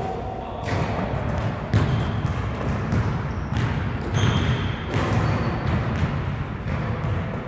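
A basketball thudding repeatedly on a hardwood gym floor and off the rim and backboard during rapid layups from a wheelchair, about one impact a second, with a few short high squeaks of rubber on the floor.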